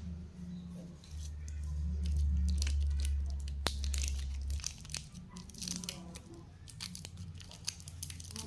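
Plastic lollipop wrappers being handled, crinkled and torn open, with scattered sharp crackles throughout. A low rumble comes in about a second in and stops about halfway through.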